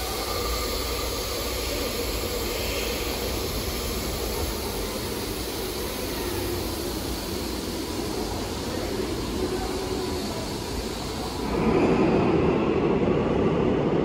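Steady hum and hiss of a subway station, with a Seoul Metro Line 2 resistor-controlled electric train standing at the platform. About eleven seconds in, a louder rumble swells up as the train moves.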